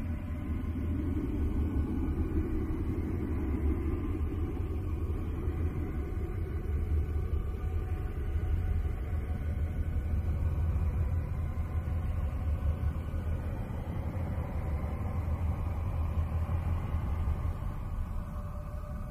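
Space 'sound' presented as that of Uranus's moon Miranda: a steady, deep rumbling drone with faint held tones above it. A hum a little higher than the rumble sounds for the first few seconds, then fades.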